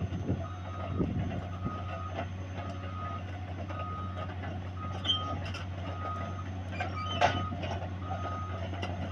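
A heavy machine's backup alarm beeping about once a second, one steady tone, over the steady low drone of a diesel engine. A few sharp metallic clanks come through, the loudest about seven seconds in.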